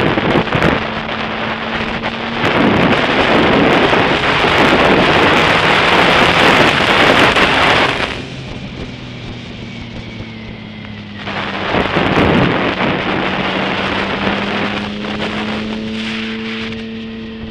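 Wind buffeting the microphone of a motorcycle rider's helmet camera at riding speed, swelling into two long loud gusts, with the motorcycle engine's steady hum underneath that rises slightly in pitch near the end.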